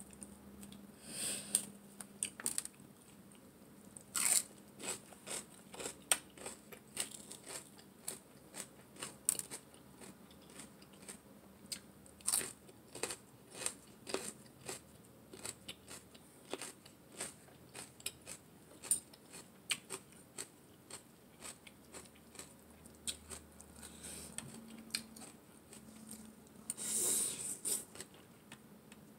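Close-up eating sounds: many short, crisp crunches of chewing raw vegetables from a pounded carrot salad. Near the end comes a longer slurp of a glass noodle being sucked in.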